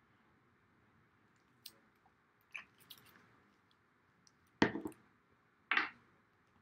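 A bottle of Tombow liquid glue squeezed out onto cardstock: a few faint clicks, then two short squeezes about a second apart near the end.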